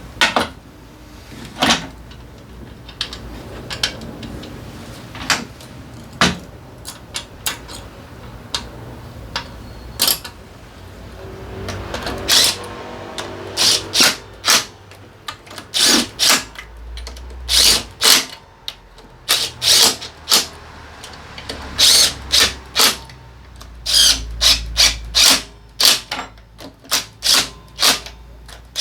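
Hand work on a scooter's drivetrain: metal tools and parts knocking and clicking in irregular sharp strikes, coming more often in the second half.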